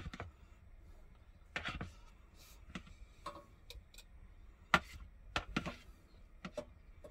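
Irregular light clicks and knocks of a metal potato ricer against a stainless steel pot as boiled potatoes are loaded into it for pressing, with the sharpest knock a little before five seconds in.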